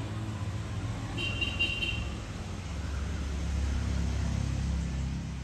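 Low rumble of road traffic, growing louder in the second half as a vehicle passes, with a brief high-pitched tone, like a distant horn toot, about a second in.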